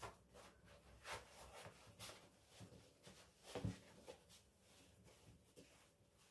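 Near silence with a few faint, short taps and knocks, the clearest about three and a half seconds in.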